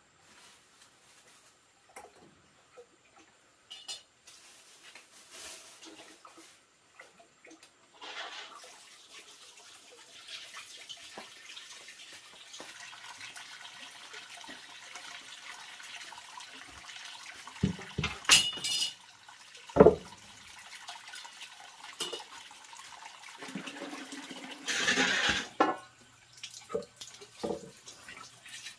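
Water running and splashing steadily, starting about eight seconds in and stopping near the end, with a few sharp knocks of kitchenware about two thirds of the way through.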